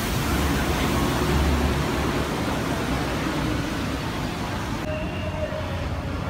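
Street traffic: a steady rumble of engines and the hiss of tyres on wet road. The hiss drops away about five seconds in.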